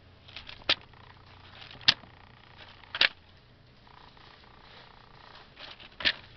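Pages of a thick paper service manual being turned by hand: soft rustling broken by four sharp paper snaps, spread over several seconds.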